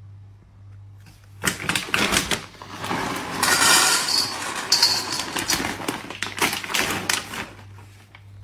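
Dry dog kibble poured from a bag into a stainless steel bowl, the pellets rattling against the metal. It starts about a second and a half in and stops near the end.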